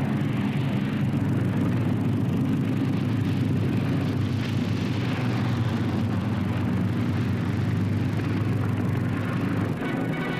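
Avro Lancaster bomber's four Rolls-Royce Merlin piston engines running with a steady drone as it touches down and rolls along the runway.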